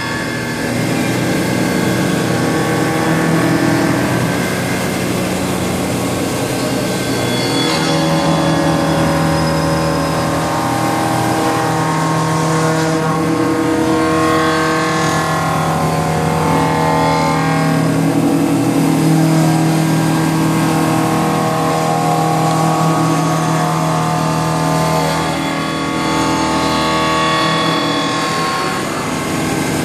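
CNC milling machine cutting a turbine blade with a carbide-insert cutter under flood coolant: a steady, loud machining drone. Several held tones shift in pitch every few seconds.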